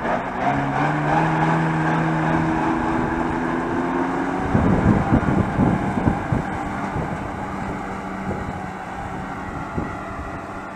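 Deutz-Fahr farm tractor's diesel engine running as it pulls a Krone disc mower through the alfalfa, a steady engine note that eases slightly as the tractor moves away. A few seconds of rough buffeting noise, like wind on the microphone, come in the middle.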